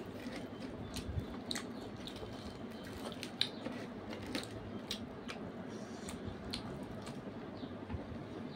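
Two people chewing and eating puri and curry by hand, close to the microphone: irregular wet mouth clicks and smacks over a steady low hum.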